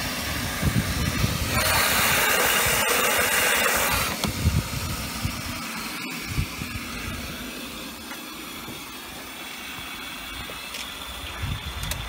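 Tricity Bendix WDR1040W washing machine filling: water hissing in through the inlet valve. The hiss is loudest from about a second and a half in and cuts off suddenly around four seconds in, leaving a fainter hiss with scattered low thumps.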